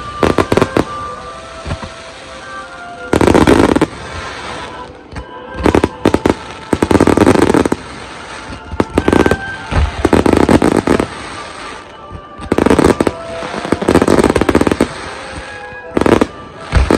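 Fireworks display: volleys of firework shells bursting in dense clusters of bangs about every three seconds, with quieter stretches between.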